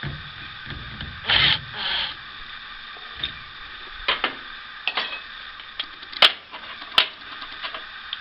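Hand-tool work on a furnace's draft fan wiring: two short scraping rubs, then a scattering of sharp metallic clicks and taps.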